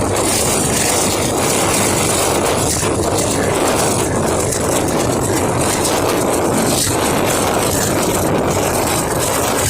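GE U20 diesel-electric locomotive's engine working hard under load up a gradient: a loud, steady drone.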